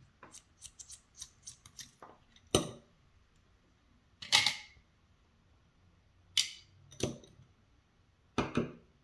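Small metal lock parts being handled as the cam is taken off a Schlage Primus lock cylinder. A run of light ticks is followed by five sharp clicks spaced a second or two apart, the loudest about four seconds in.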